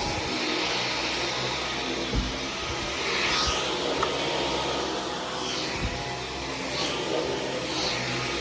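Dyson V15 Detect cordless stick vacuum running on medium power over carpet: a steady high motor whine over the rush of suction, the hiss swelling every couple of seconds, with a few light knocks.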